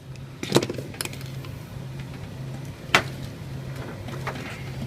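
Casement window crank operator hardware being handled and pulled out of the window frame: two sharp clicks, one early and one about three seconds in, over a low hum.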